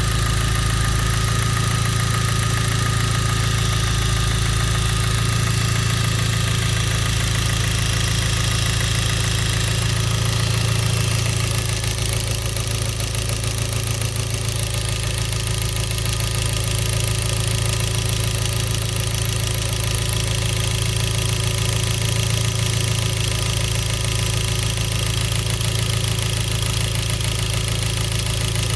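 Genesis 2.0T turbocharged four-cylinder engine running steadily with rod knock, a rapid knocking from a spun connecting-rod bearing that the owner puts down to oil starvation from a faulty oil pump.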